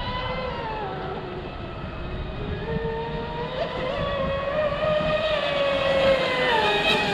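Radio-controlled speedboats running at speed, their electric motors whining with a pitch that wanders up and down as they throttle and turn. A low rushing noise sits beneath the whine.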